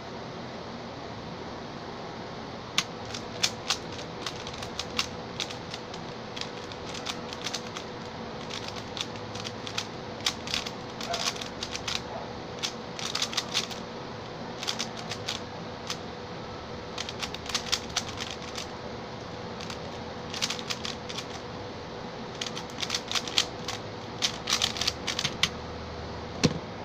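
Stickerless Xin Lexin 3x3 speed cube being turned fast in a timed solve: rapid runs of plastic clicks and clacks, broken by short pauses, starting about three seconds in. A single knock near the end.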